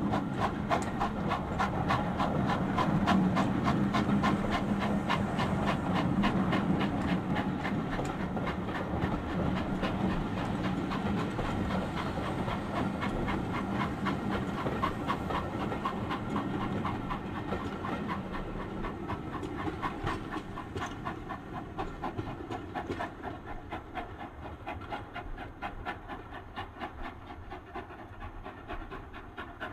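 Single-chimney Castle class 4-6-0 steam locomotive No. 7017 'G.J. Churchward' working hard with a heavily loaded express, its exhaust beating rapidly and evenly. The beats fade steadily as the engine pulls away.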